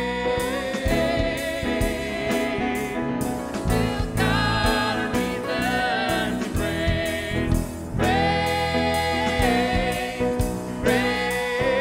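Live band music with two singers, a woman and a man, over electric bass guitar and an electronic drum kit.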